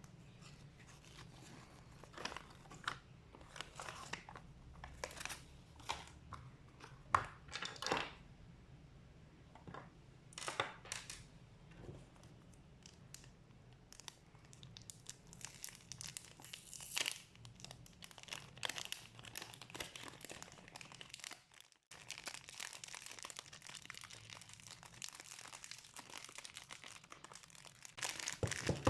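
Packaging being handled and opened: plastic wrapping crinkling and tearing in scattered short rustles, turning into steadier, denser crinkling in the last several seconds.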